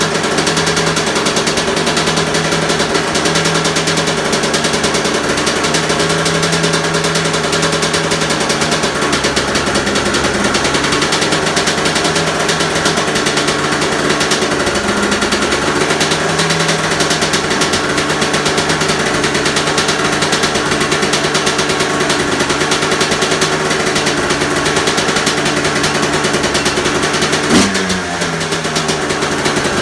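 2002 Honda CR250 two-stroke single-cylinder engine running steadily on its stock expansion chamber and R304 shorty silencer, just after a cold start, with a brief blip near the end.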